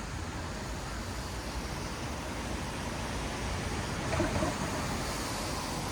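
Traffic on a wet city road: tyres hissing on wet asphalt over a low rumble of engines, slowly growing louder as vehicles approach. A brief louder sound stands out about four seconds in.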